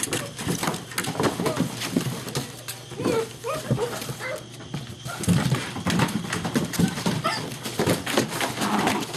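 German Shepherd puppies play-fighting: paws scrabbling and clicking, with short yips and growls, loudest about a second in and again from five seconds on.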